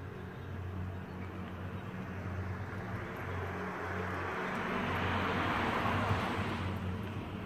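A vehicle passing by: a rushing noise builds up, peaks about six seconds in, then fades away.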